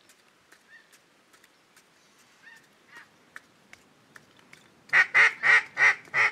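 A mallard duck call blown in a run of about six loud quacks, roughly three a second, starting about five seconds in; before that only faint ticks.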